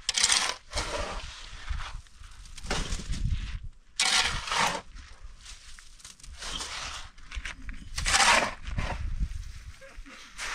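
Steel shovel scraping into a heap of sand and gravel and tipping the load into a wheelbarrow. Each stroke is a gritty scrape and pour, a few seconds apart, four main times.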